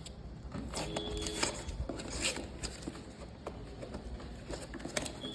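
Scattered light clicks, taps and rustles of a laptop and its packaging being handled.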